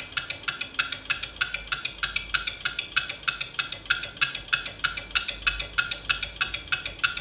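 Homemade hard-drive solenoid engine running: the head actuator lever and its wire switching contact click rapidly and evenly, about five times a second, as the spindle rotor turns.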